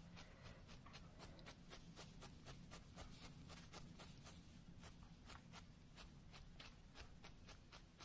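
Faint, quick, even stabbing of a 38-gauge felting needle through wool into a hessian-covered felting pad, about four to five short scratchy strokes a second: felting on a leg with short, gentle stabs.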